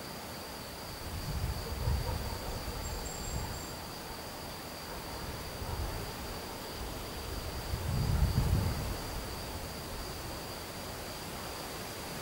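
Outdoor ambience with a steady, thin, high-pitched insect tone over a faint hiss. Two low rumbles rise and fade, about a second in and again about eight seconds in, and are the loudest sounds.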